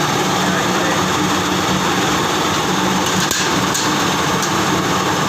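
Plastic scrap washing machine running: a loud, steady mechanical din with a low hum, and a couple of light ticks about three and a half seconds in.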